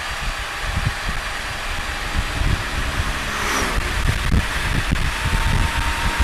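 Wind rush and road noise from a Can-Am Spyder three-wheeler at cruising speed, heard through a helmet-mounted camera, with gusty buffeting thumps throughout. About three and a half seconds in, an oncoming vehicle passes with a brief falling whoosh.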